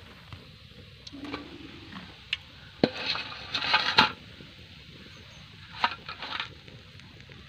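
Metal clinks and scrapes of a wire-mesh skimmer against a steel wok and a steel plate as fried vadas are lifted out of the oil and tipped onto the plate. The sharp clinks and clatter come in a cluster about three to four seconds in and again briefly near six seconds.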